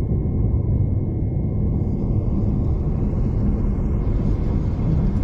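V/Line passenger train running along the track, a steady low rumble heard from inside the carriage.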